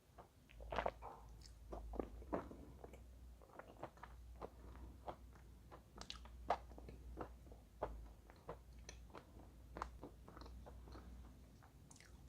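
Chalk being bitten and chewed: a run of sharp, irregular crunches, one or two a second.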